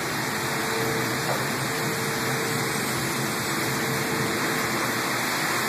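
Torrential thunderstorm rain pouring down in strong wind: a steady, even rush of rain.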